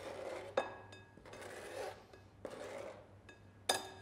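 Knife blade scraping chopped red onion across a plastic chopping board into a glass mixing bowl, in three strokes. A few sharp taps against the glass bowl follow near the end, each ringing briefly.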